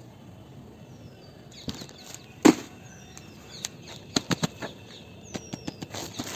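Plastic courier mailer bag crinkling and crackling under fingers as it is handled, in sharp irregular crackles, the loudest about two and a half seconds in and a quick cluster near the middle. A short high falling chirp sounds three times in the background.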